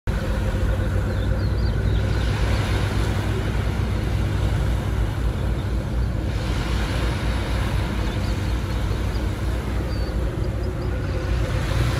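Steady low rumble and hiss of open-air seaside ambience, with most of the sound down low.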